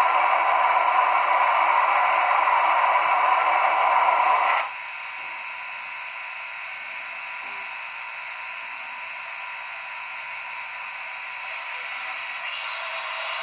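Sound decoder of an HO-scale steam locomotive model playing steam hiss through a small speaker. A loud hiss cuts off sharply about four and a half seconds in, leaving a quieter steady hiss that swells slightly near the end.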